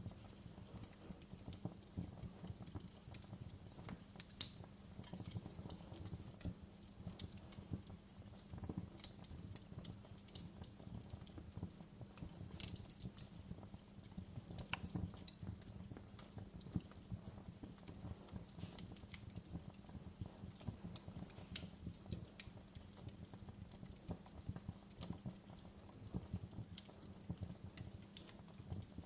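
Fire crackling, with irregular sharp pops and snaps over a steady low rustle.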